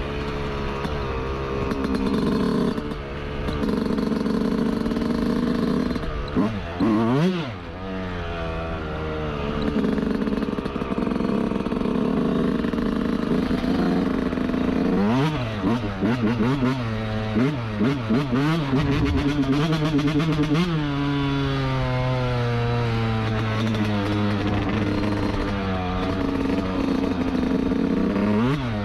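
Yamaha YZ125's 125cc single-cylinder two-stroke engine on a dirt bike being ridden, the revs rising and falling repeatedly as the throttle is worked and the gears change. Sharp quick revs about 7 seconds and 15 seconds in, and a longer steadier run between about 17 and 26 seconds in.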